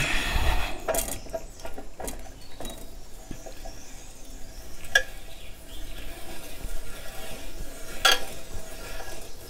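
A 24 mm spanner clinking and scraping on a motorcycle's front axle nut as the nut is turned loose, with a few sharp metal clicks spread through.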